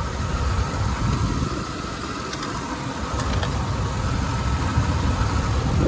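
Chevrolet Vortec 8100 8.1-litre big-block V8 idling steadily with the hood open, with some light valve-train noise that the seller says the phone's microphone makes sound louder than it is in person.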